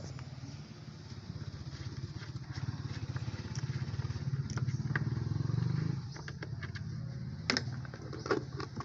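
A small engine running with a fast, even pulse, growing louder over the first six seconds and then dropping back, with scattered clicks and knocks.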